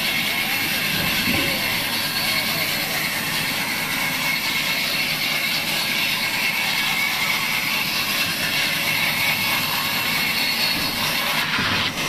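Large sawmill band saw running and ripping a long timber beam that is fed along its table. The noise is steady and unbroken, with a high whine over the hiss of the cut.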